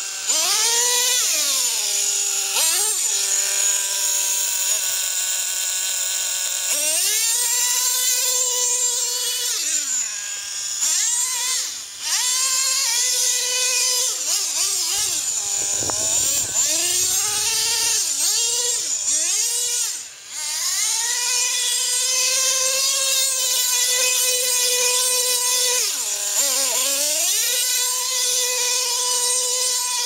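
Traxxas T-Maxx nitro RC truck's small two-stroke glow engine running at high, buzzy revs, its pitch held steady for stretches and swooping down and back up as the throttle is let off and reapplied. Twice it drops off briefly before winding back up.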